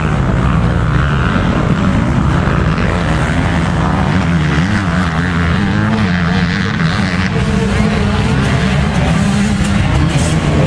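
Several motocross bikes' engines running and revving at once, overlapping, their pitches wavering up and down.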